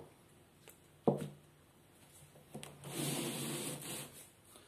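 A single knock about a second in, then a rubbing scrape lasting about a second and a half as a pipe socket-fusion machine is dragged across the worktable.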